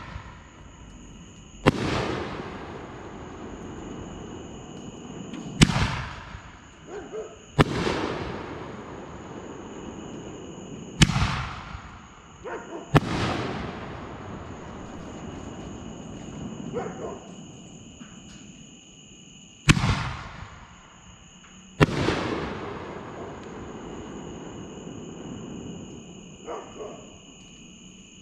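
5-inch canister aerial firework shells going off in succession: sharp launch reports from the mortar tubes, each followed about two seconds later by the heavy boom of the shell breaking overhead, which rolls away in a long echo. Fainter crackling pops sound between the big reports.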